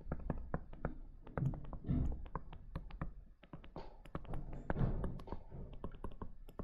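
Stylus tapping and clicking on a touchscreen while handwriting: a quick, irregular run of light taps, several a second, as each stroke of an algebra expression is written.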